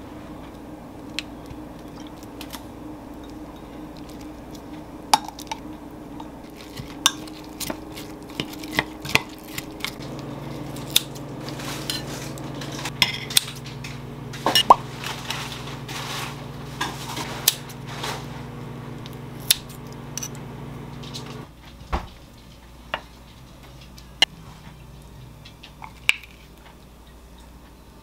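Kitchen utensils clinking and tapping in a string of sharp clicks: a spoon against a glass measuring cup, and metal tongs and kitchen scissors on a ceramic plate as steak is cut. A steady low hum runs underneath and stops suddenly about three quarters of the way through.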